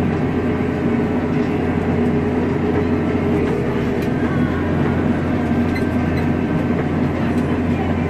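Claas Axion tractor's diesel engine running steadily under load at about 1,770 rpm while pulling a plough, heard from inside the cab as an even, constant drone.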